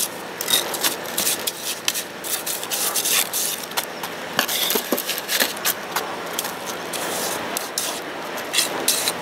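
Pointed steel masonry trowel scraping and spreading wet, fairly runny concrete over the top of a brick chimney: a run of irregular rough scrapes and slaps.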